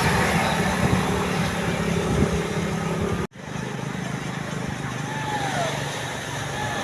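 Tour bus engine running under a haze of road traffic noise, with a steady low hum. The sound cuts out abruptly about halfway through and comes back quieter.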